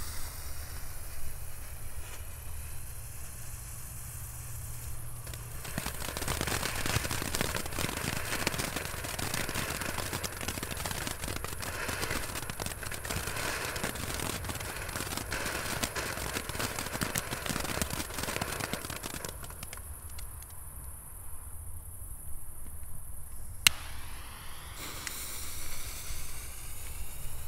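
Small Category 1 consumer firework going off: dense, rapid crackling that starts about six seconds in, lasts around thirteen seconds, then dies away, followed a few seconds later by one sharp pop and some scattered crackle.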